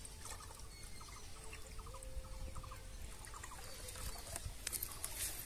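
Watermelon juice poured from a steel tumbler into a strainer carved from watermelon rind, faintly pattering and trickling through into a glass beneath. The patter grows louder near the end.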